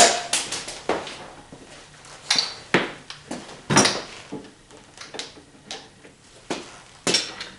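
Metal hand tools clinking and clattering on a workbench as they are picked through and handled: a string of irregular sharp clanks and clicks, a few louder than the rest.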